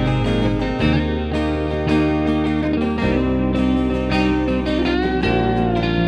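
Instrumental worship music: acoustic guitar strumming with an electric guitar picking a melody over low held notes that change about every two seconds, and a bent electric-guitar note a little before the end.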